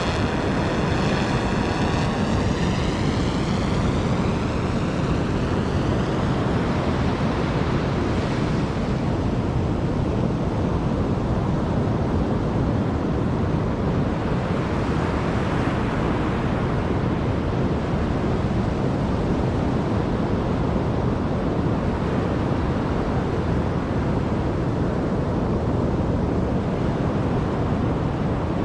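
SwellPro SplashDrone 4 quadcopter's propellers whining as it climbs away, a sweeping whoosh that fades over the first few seconds. Steady surf and wind buffeting on the microphone carry on after it.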